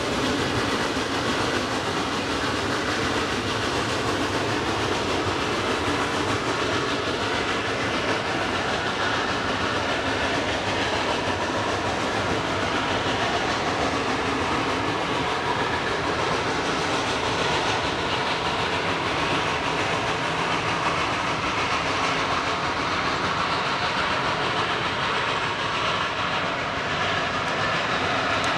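Geared steam locomotive working hard under heavy smoke, pulling a train of passenger cars past, with a steady, even level.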